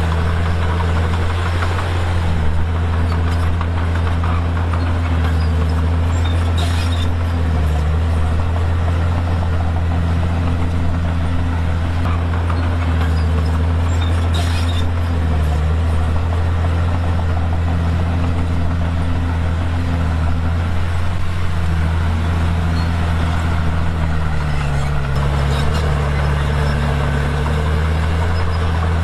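Komatsu D51PX bulldozer's diesel engine running steadily under load, its low drone wavering slightly in pitch and dipping briefly a few seconds before the end.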